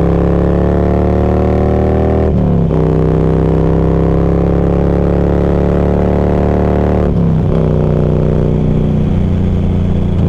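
Motorcycle engine accelerating through the gears, heard through a lav mic inside a full-face helmet. The pitch climbs steadily, drops at an upshift about two and a half seconds in and again about seven seconds in, then runs steadier.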